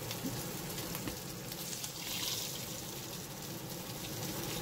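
Golden threadfin bream frying in shallow oil in a wok over high heat: a steady sizzling hiss.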